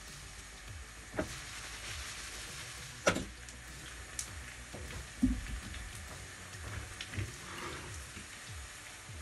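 Diced onion and potato frying in oil in a cast-iron pan, a steady sizzle. A few sharp knocks of kitchenware handled on a wooden cutting board cut across it, the loudest about three seconds in, with a dull thud a couple of seconds later.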